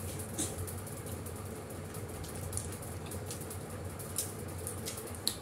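Faint eating sounds: a few soft clicks and smacks of people chewing and eating with their fingers, over a low steady room hum.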